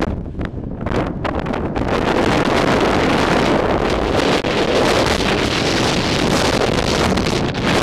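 Strong mountain wind buffeting the camera's microphone: a loud, gusty rush with a heavy low rumble, which fills out and holds strong from about two seconds in.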